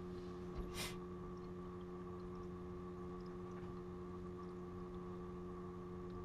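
Steady, faint motor hum from a home-made laptop water-cooling rig running under a CPU stress test, with a brief rustle just under a second in.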